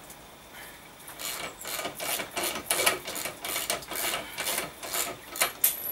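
Socket ratchet cranking the screw of a scissor jack: a quick run of ratchet clicks and rasps, about four a second, starting about a second in.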